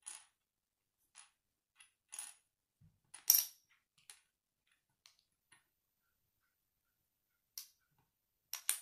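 Small plastic Lego bricks being handled and fitted together on a wooden tabletop. The result is a series of sharp clicks and taps at irregular intervals, the loudest about three seconds in, with a quick double click near the end.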